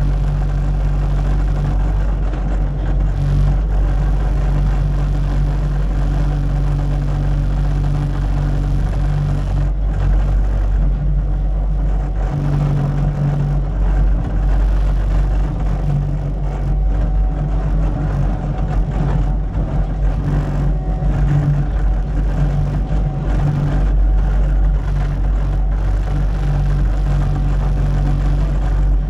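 Diesel engine of Caterpillar compaction equipment running steadily at work, with a strong low rumble; its pitch shifts a little now and then.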